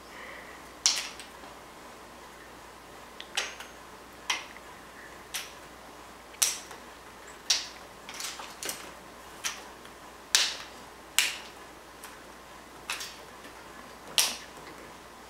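A series of sharp clicks, about a dozen, roughly one a second and unevenly spaced.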